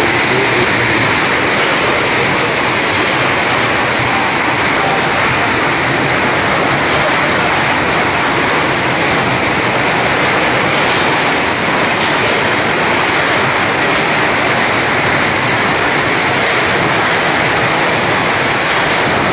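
Goods train rolling past close along a station platform: a loud, steady din of wagons on the rails, its overloaded wagons scraping through the platform shed roof. A thin, high squeal runs for several seconds in the first half.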